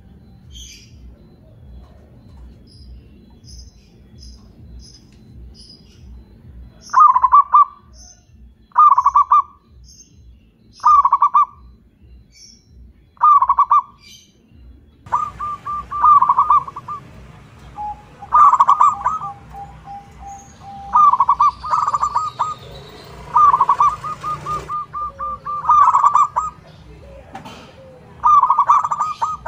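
Zebra dove (perkutut) cooing. After a few seconds the phrases come about two seconds apart. From about halfway the coos come closer together and overlap, with a longer, lower-pitched coo among them.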